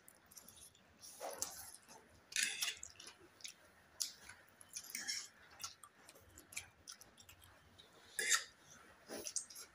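Two people slurping and chewing instant noodles, with wet slurps and mouth smacks at irregular intervals; the loudest slurp comes about eight seconds in.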